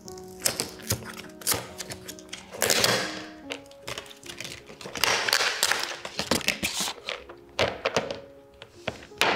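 Soft background music with held notes, over frequent clicks, taps and knocks and a few longer rustles, like objects being handled and set down close by.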